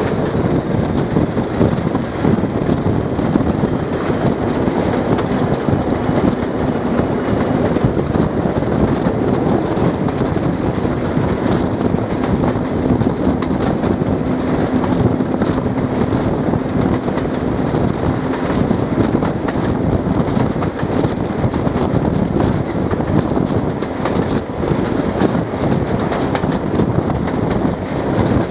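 Diesel-hauled train running, a loud steady mix of engine and wheel-on-rail noise with a faint steady hum.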